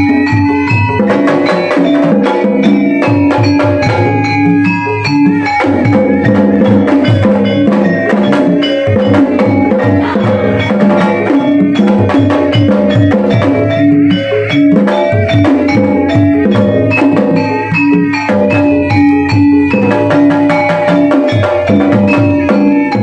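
Sundanese gamelan ensemble playing: dense, rhythmic strikes on tuned bronze metallophones and gongs, with drums, at a steady loud level.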